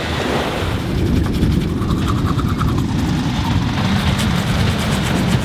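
Wind buffeting the microphone: a steady, dense low rumble.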